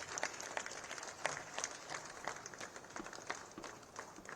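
Audience applauding, with irregular separate hand claps.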